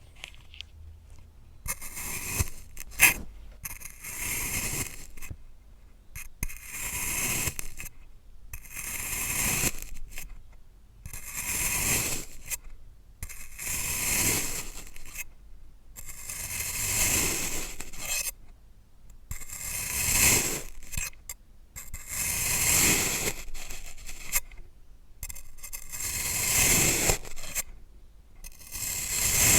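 Kinetic sand being sliced with a blade, cut after cut about every two seconds, each stroke a soft gritty scrape with short pauses between. A sharp tap sounds about three seconds in.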